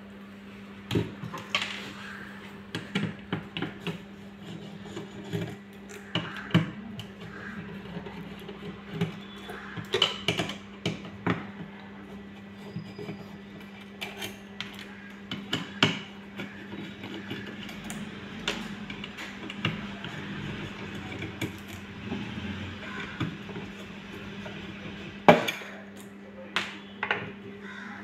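Screwdriver and small steel screws clicking and clinking against a sheet-metal hard-disk caddy as the screws are backed out and set down, in irregular taps with one sharper clack near the end. A steady low hum runs underneath.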